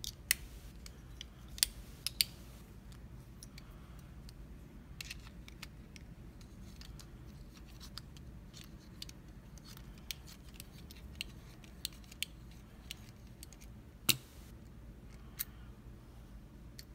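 Irregular sharp metallic clicks and taps from an American 1100 padlock being handled and worked on with small tools as it is taken apart, the loudest few near the start and one about 14 seconds in.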